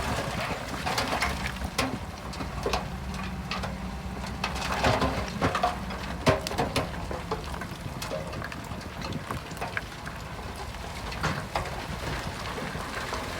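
Diesel engine of a Shantui DH17 C2 bulldozer running steadily, with scattered sharp clicks and knocks of stones and metal over it; one louder knock about six seconds in.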